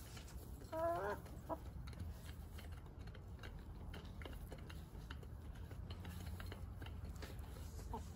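Backyard hens clucking: one short warbling call about a second in and a brief second sound just after, over a low steady rumble.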